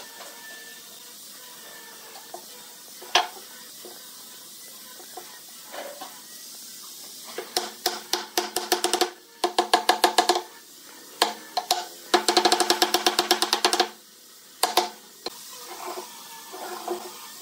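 Turned wooden mallet knocking curved wooden pieces into the joints of a wooden pedestal base: a single knock about three seconds in, then several quick runs of rapid taps in the second half, the wood ringing with each blow.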